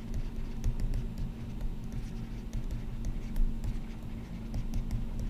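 Stylus tapping and scratching on a tablet screen in quick, irregular clicks as words are handwritten, over a steady low hum.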